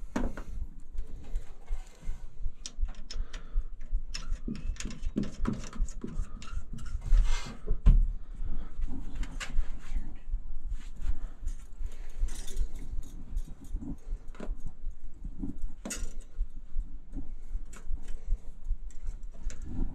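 Irregular light clicks, rustles and metallic clatter of hands handling a thermal expansion valve's coiled capillary tube and brass fittings on copper refrigerant lines, with a few low thumps, the loudest about seven to eight seconds in.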